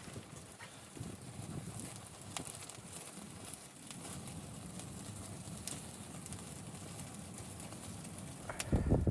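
Footsteps crunching in deep snow, an uneven tread with scattered sharp crackles. Heavier thumps come in near the end.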